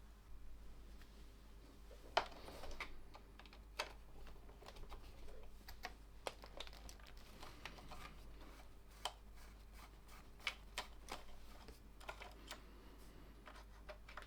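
Irregular small clicks and taps of hands and tools working on the Armstrong 626 receiver's casing and chassis: clips and a screw being undone so the chassis can slide out. The sharpest click comes about two seconds in.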